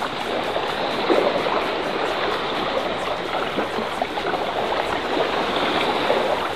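Sea water splashing and lapping against a fishing kayak's hull as a steady, crackly wash.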